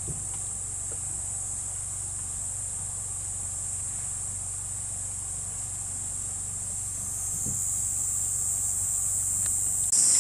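Evening chorus of insects such as crickets: a steady high-pitched shrill trill that grows louder near the end, over a faint low steady hum.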